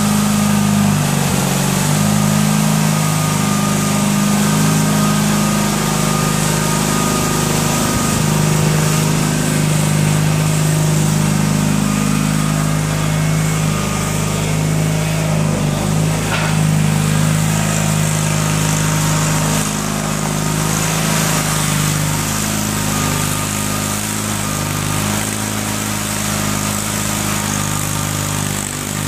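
Air Horse aircraft tug's small engine running steadily as the tug is driven and manoeuvred, its pitch shifting a little now and then.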